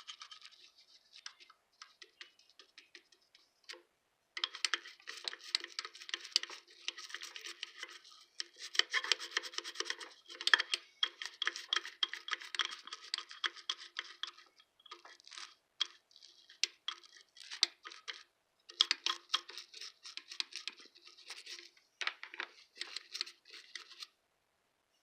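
Small toothbrush scrubbing the surface of a vintage sewing machine with waterless hand cleaner: rapid back-and-forth bristle scratching in spells of a few seconds, broken by brief pauses.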